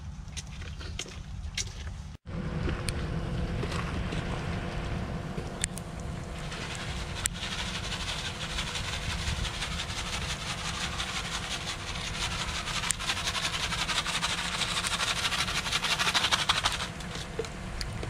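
Snow shovel scraping over a concrete walkway, the scraping heaviest in the second half. Under it runs a steady low rumble, with a short break about two seconds in.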